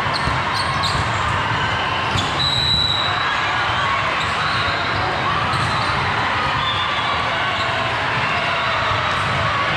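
Steady murmur of many voices echoing in a large hall, with a short high squeak about two and a half seconds in.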